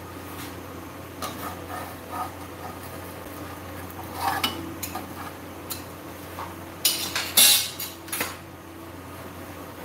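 Kitchen tongs clicking and scraping against a nonstick frying pan as a toasting sandwich is gripped and turned. The clatter comes in scattered bursts, loudest about seven seconds in.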